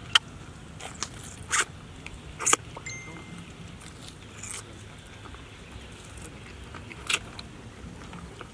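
A person eating cooked snake, biting and sucking the meat off the skin: about six short, sharp mouth smacks and slurps at irregular intervals, the loudest just after the start and another about seven seconds in.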